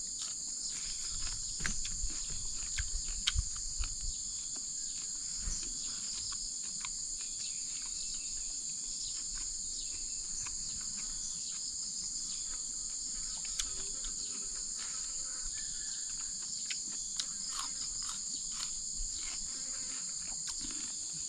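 Steady, high-pitched chorus of insects that never lets up, with scattered small clicks and knocks, more of them in the first few seconds.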